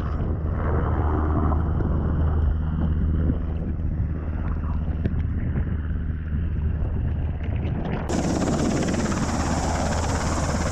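UH-60 Black Hawk helicopter's rotors beating overhead, heard from a camera at water level with wind and splashing water on the microphone. About eight seconds in the sound suddenly turns brighter and hissier.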